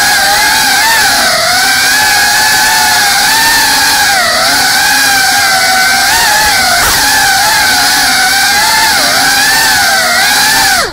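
GEPRC Cinelog 35 ducted cinewhoop drone's motors and propellers whining continuously, the pitch wavering up and down with the throttle as it flies.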